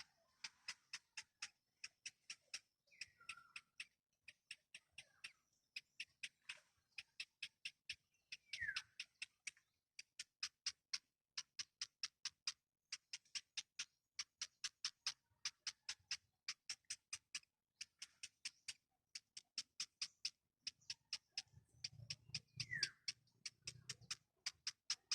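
Baby birds chirping in the nest: a steady run of short, high-pitched chirps about four a second, with an occasional lower chirp that slides downward.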